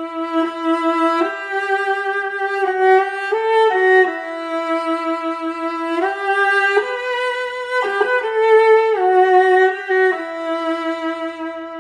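Solo viola playing a slow melody, one held note at a time with vibrato, each note lasting about a second.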